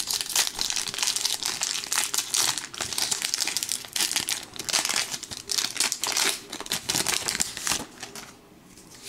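Foil Pokémon booster pack wrapper crinkling and tearing as it is pulled open by hand. The crackling stops about 8 seconds in.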